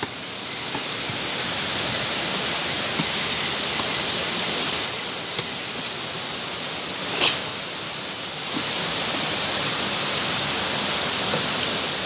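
Steady rush of water from a waterfall and its stream. A short knock sounds about seven seconds in.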